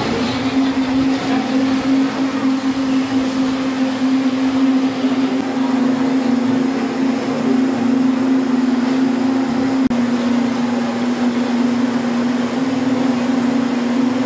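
Electric countertop juice blender running steadily with a loud, even motor hum; after a short click about ten seconds in the hum carries on at a slightly lower pitch.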